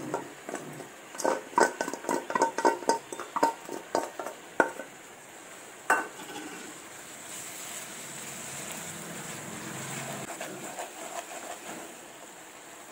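A dozen or so quick metallic clinks and knocks from the steel bowl and utensils as grated coconut is knocked out into hot jaggery syrup. After one last sharp knock about six seconds in, there is a steady bubbling hiss as the coconut is stirred into the syrup with a wooden spatula.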